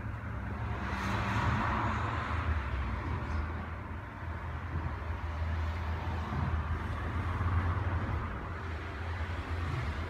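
Steady low background rumble with a soft hiss over it.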